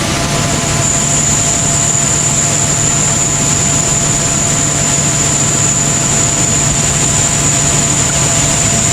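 Tractor engine running steadily under load, driving a grain cart's unloading auger as the cart is emptied into a semi. A steady high whine sets in about half a second in, over a constant low hum.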